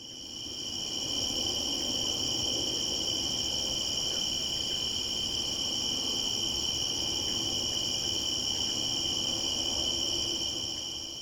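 Dense night chorus of insects such as crickets, a steady high-pitched shrill trilling on two pitches. It fades in at the start and fades out near the end.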